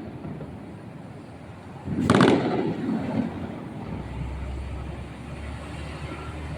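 A firework bursting with a loud bang about two seconds in, its sound trailing off over about a second; a steady low rumble comes in from about four seconds in.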